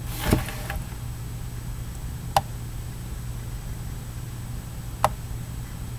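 Room tone: a steady low electrical hum with hiss, a brief low sound just after the start, and two sharp clicks about two and a half seconds apart.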